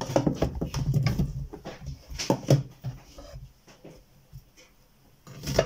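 Kitchen knife cutting the ends off strawberries on a bamboo cutting board: a rapid run of knocks and taps on the wood, then quieter, with one sharp knock near the end.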